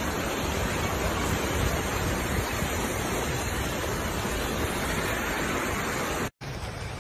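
Floodwater rushing over a road: a steady rush of water noise that cuts out for an instant about six seconds in, then goes on a little quieter.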